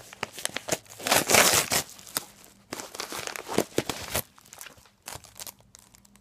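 Mailing envelope being torn open and crinkled by hand, with crackling rustles and a loud burst about a second in. It quiets near the end as the Blu-ray case comes out.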